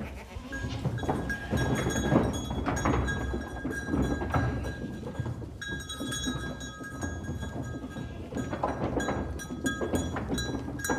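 Many animal bells clanking and ringing together over a low rumble, as on a herd on the move.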